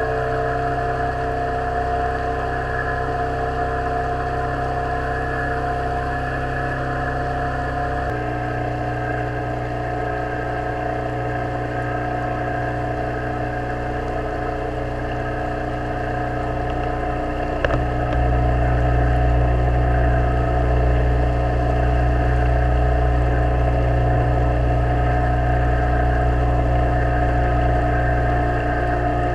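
Boat's outboard motor running steadily at cruising speed. Its tone shifts about eight seconds in, and after a sharp click a little past halfway it runs louder.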